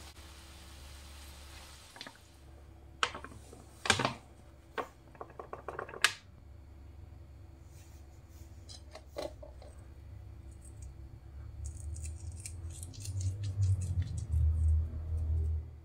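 Small kitchen handling sounds: a few sharp clicks and taps, the loudest about four and six seconds in, as salt and ajwain seeds are added to a glass bowl of flour. A soft hiss from mince frying in a pan comes first, and a low rumble with faint rustling comes near the end.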